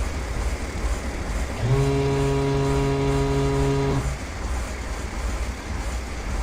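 Steady low rumble of a light aircraft in flight, with a steady horn-like warning tone sounding once for about two seconds near the middle.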